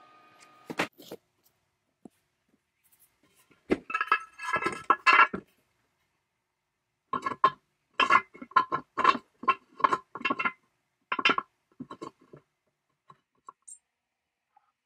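Hard metal parts clinking and knocking together, with a short ring after each knock. A rapid cluster of knocks comes about four seconds in, then a dozen or so separate sharp knocks in the second half.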